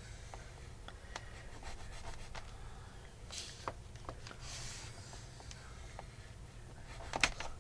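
Paper being handled and scored on a craft table: small taps and clicks, two brief rustling swishes near the middle, and a louder cluster of clicks near the end, over a low steady hum.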